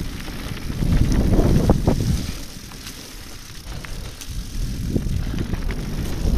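Mountain bike rolling over a leaf-covered dirt singletrack: wind buffeting the action camera's microphone as a low rumble, with scattered clicks, knocks and rattles from the tyres and bike over the rough ground. It eases off briefly in the middle, then builds again.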